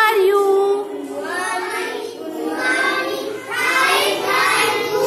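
A class of young schoolchildren singing a greeting song together in unison.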